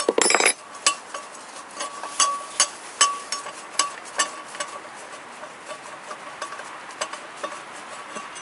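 Metal tools or parts being handled: irregular light clinks and taps with a faint ringing, thick at first and sparser later, after a short louder clatter right at the start.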